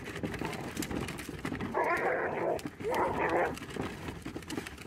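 A dog growling and barking in two short bursts, about two and three seconds in, as it bites at the wheel of a garbage bin being rolled along. Under it, the bin's wheels rattle and crunch over gravel.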